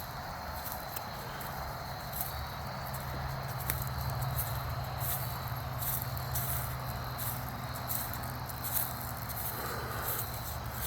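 Footsteps crunching along a path about once or twice a second, over a steady low hum and a thin, steady high-pitched tone.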